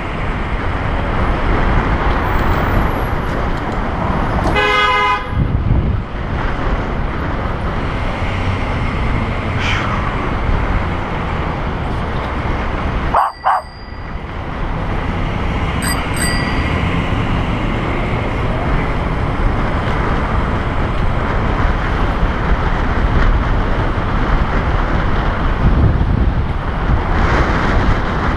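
Steady rush of wind on the microphone and city traffic noise while riding a bicycle in traffic, with a vehicle horn honking once for about a second around five seconds in. The noise cuts out briefly about halfway through.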